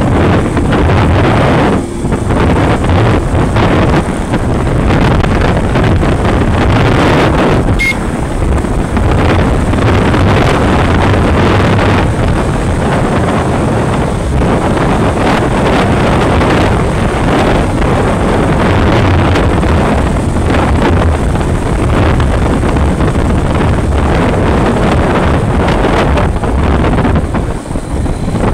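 Wind rushing and buffeting over the microphone of a phone carried on a moving motorcycle, mixed with the motorcycle running at road speed. It is loud and steady, easing only briefly about two seconds in and near the end.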